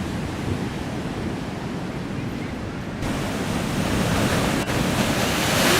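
Rough sea surf with waves breaking and wind buffeting the microphone. About three seconds in the sound jumps to a louder, hissier roar.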